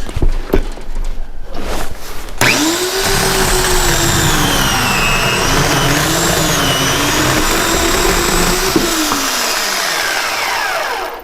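A few knocks, then about two seconds in a Portland 14-inch 9-amp electric chainsaw switches on and cuts through a piece of firewood, its motor pitch dipping and wavering under the load. Near the end the trigger is let go and the motor winds down, its pitch falling as the chain coasts to a stop.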